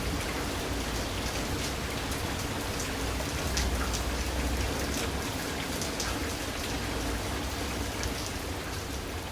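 Steady rain falling, with scattered drops ticking and a low rumble underneath.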